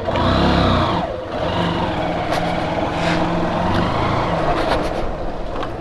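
Motorcycle engine revving up sharply in the first second, then running steadily.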